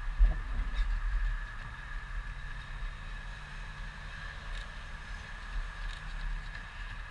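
Outdoor ambience: gusty wind rumbling on the microphone, loudest in the first two seconds, under a steady high-pitched hum, with a few faint ticks from runners' footfalls on the gravel path.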